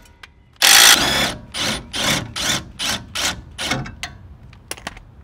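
Maximum cordless impact wrench with a 21 mm socket on a Jeep Wrangler's factory track bar bolt: one loud run of nearly a second as it breaks the bolt loose, then about six short trigger pulses roughly 0.4 s apart. A few light metal clicks near the end.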